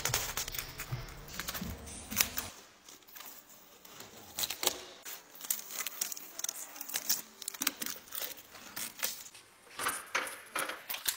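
Protective foam strips, tape and plastic film being peeled and pulled off a new car's bodywork: an irregular run of crackling, tearing and crinkling with sharp clicks.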